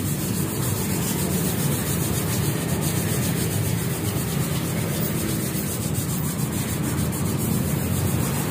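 Air spray gun hissing steadily as it sprays black paint onto a motorcycle muffler, with a steady low hum underneath.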